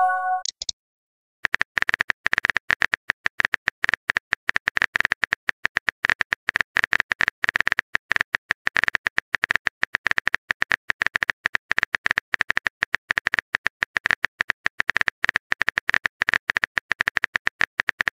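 A short message-notification chime at the very start, then, after about a second of silence, a fast, uneven run of keyboard-tap clicks: a typing sound effect while the next message is being written.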